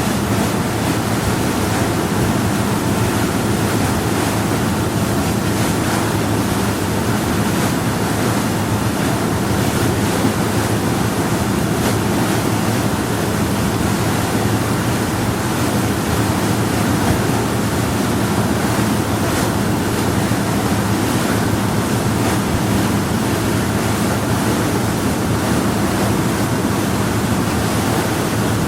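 Power yacht under way at a steady speed: a low, even engine drone under the wash of water along the hull.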